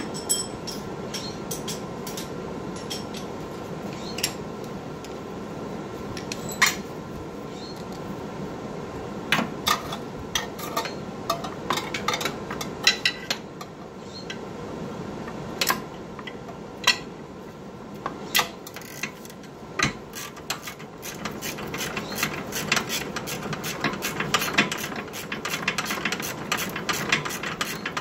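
Metal hand tools clicking and clinking against car parts under the vehicle, in irregular sharp strikes that come in quicker clusters during the second half, over a steady shop hum.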